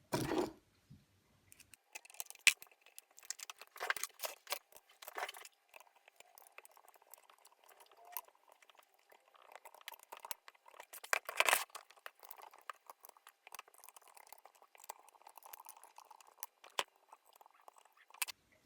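Handling noises from assembling 3D printer parts: scattered small clicks and taps of plastic and metal pieces, with soft rustling in between and one louder knock a little past halfway.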